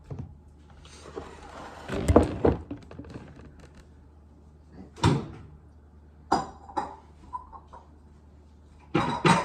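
Kitchen cupboard being opened and closed while kitchenware is handled. There is a clattering rummage about two seconds in, then a few separate knocks and bumps.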